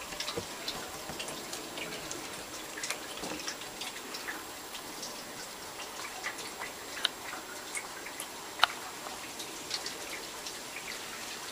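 Water drops falling irregularly after a light rain shower: scattered drips and raindrops ticking onto leaves and garden surfaces, with two sharper drops about seven and eight and a half seconds in.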